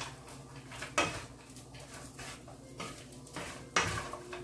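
Wooden spatula stirring anchovies and nuts in a frying pan, scraping and clattering, with two sharp knocks against the pan, one about a second in and one near the end.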